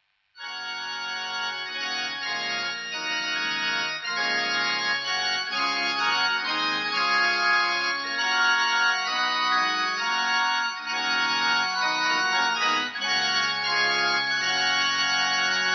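Organ music: slow, sustained chords that change every second or two, starting about half a second in.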